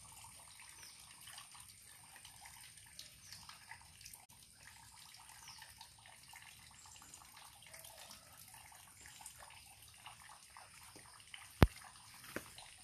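Faint dripping and trickling of floodwater, with scattered small drips. Near the end comes one sharp knock, then a lighter one.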